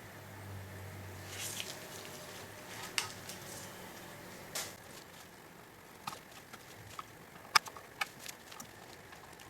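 Light clicks and taps from handling an opened automotive ECU and its circuit board, scattered irregularly, with a cluster of sharper ticks near the end.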